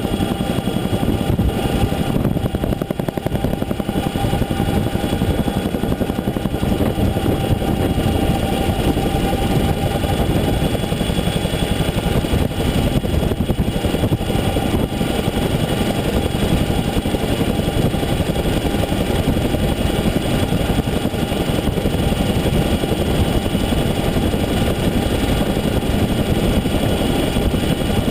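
CH-47 Chinook twin-rotor helicopter heard from its open door while hovering low: loud, steady rotor and turbine noise with thin steady whines running through it.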